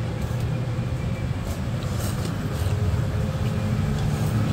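Street traffic: a motor vehicle's engine running close by, a steady low rumble that grows a little stronger about halfway through.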